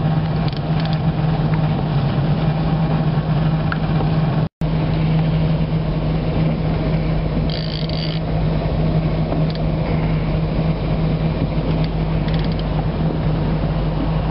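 Boat engine idling with a steady low hum. Over it comes the mechanical ratcheting of a fishing reel as a large hooked sturgeon takes line.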